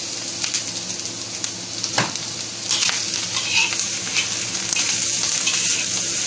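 Diced zucchini, ham and egg sizzling in a hot wok while a metal spatula stirs and scrapes them against the pan, with a sharper knock about two seconds in. The sizzling grows louder after about three seconds.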